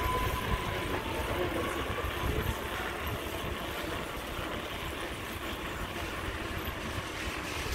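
Steady road and wind noise of a bicycle ride: tyres rolling on the road and wind rumbling on the microphone.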